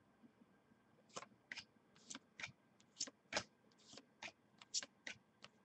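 Trading cards being handled: a quick run of light, sharp card flicks and snaps, two or three a second, starting about a second in.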